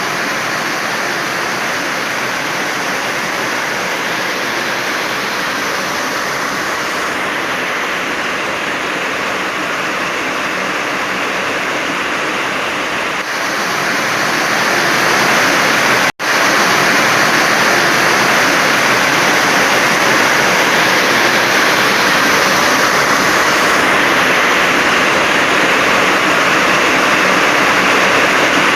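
Heavy rain pouring steadily, a dense even hiss of water. It gets somewhat louder about halfway through, and a few seconds later cuts out for a split second before carrying on.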